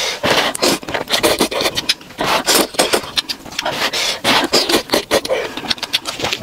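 Close-miked slurping of long instant noodles sucked up from a cup: quick wet sucking strokes in runs, with short pauses about two and three seconds in.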